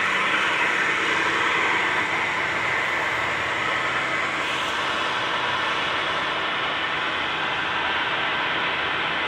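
Long wood-turning lathe running steadily, with a seven-foot turned cot leg spinning on it; a continuous even whirr from the motor and the rotating workpiece.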